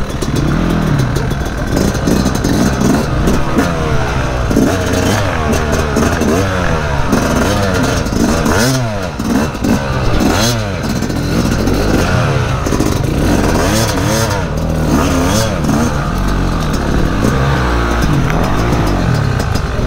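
Yamaha dirt bike engine being ridden slowly through thick brush, its revs rising and falling over and over as the throttle is blipped on and off. Scattered clicks and knocks sound over the engine throughout.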